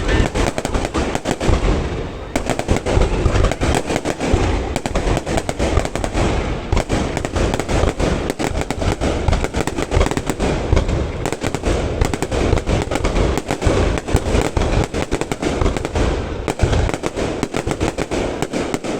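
Fireworks display: a dense barrage of overlapping bangs and crackles, many a second without a break.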